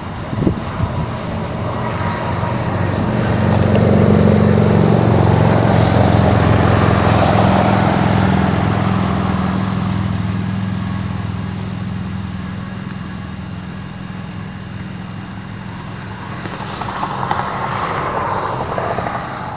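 Steady drone of a distant engine, most likely passing motor traffic. It swells to its loudest about four to eight seconds in, eases off, then rises again near the end.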